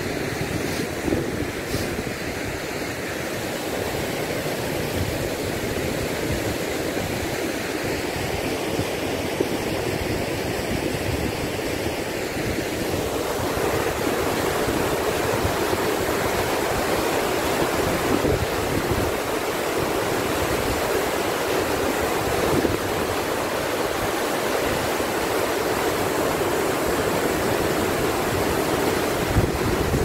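Stream water rushing steadily down a rocky cascade, the rush growing brighter and a little louder about halfway through, with wind buffeting the microphone.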